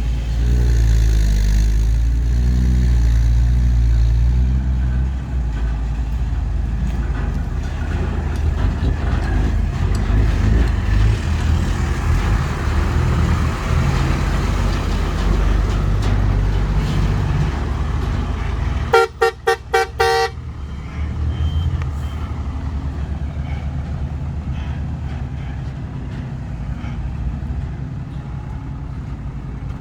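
Heavy diesel engines of a dump truck and excavator running with a steady low rumble. About 19 seconds in, a vehicle horn gives a rapid string of short toots, about six in a second and a half.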